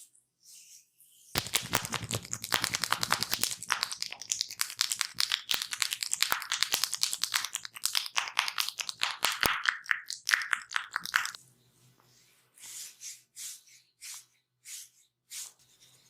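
Close-up, rapid scratching and rubbing on hair and skin during an ASMR barber session, a dense crackling that starts about a second in and stops sharply about eleven seconds in. A few short, soft scrapes follow near the end.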